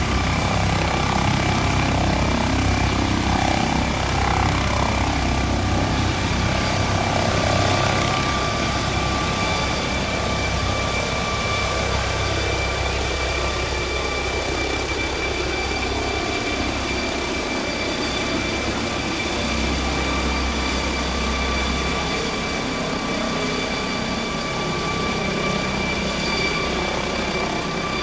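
Helicopter taking off and climbing away: a steady high turbine whine over rotor noise. The low rotor sound thins out over the second half as it climbs overhead.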